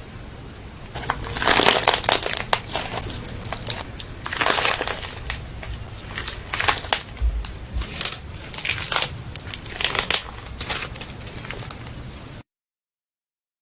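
Crunchy slime being squeezed and pressed by hand, crackling and popping in repeated bursts every second or two. The sound cuts off suddenly near the end.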